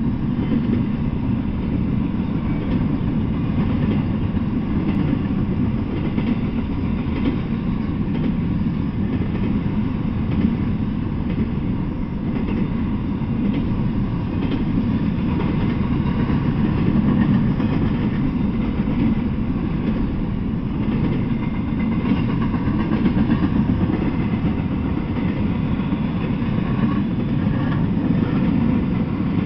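Freight train of double-stack well cars rolling past on the rails: a steady low rumble of wheels and cars that holds at one level throughout.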